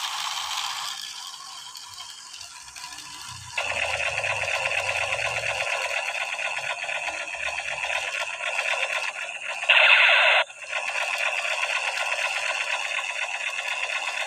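Toy assault rifle's electronic firing sound from its small built-in speaker: a thin, rapid rattling machine-gun effect held on for long stretches. It starts about three and a half seconds in and is briefly louder about ten seconds in.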